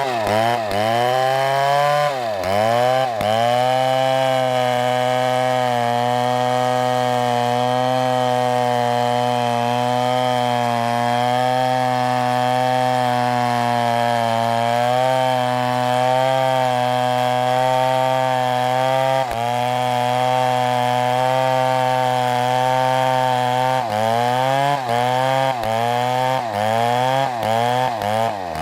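Chainsaw running at high revs through wood, a steady engine note whose pitch sags briefly as the chain bites under load: once or twice near the start and several times in quick succession near the end.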